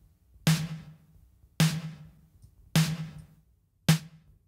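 A sampled snare drum playing four single hits, about a second apart, each with a decaying tail. It is processed through an SPL Transient Designer plugin with its sustain turned up.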